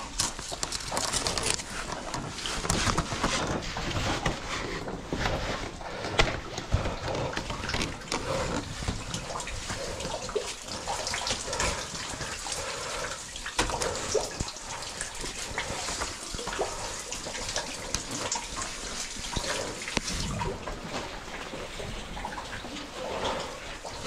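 Water splashing irregularly, with scattered clicks and knocks.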